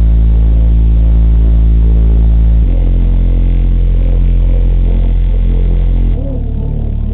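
A car-audio subwoofer playing a bass-heavy rap song very loudly: long, deep sustained bass notes that shift to a new pitch about three seconds in and again about six seconds in.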